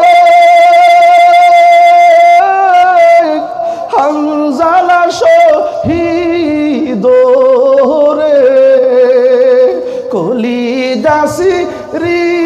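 A man singing a slow, mournful devotional verse of a Bangla waz sermon in long drawn-out notes: the first is held steady for about two and a half seconds, and the rest bend and waver.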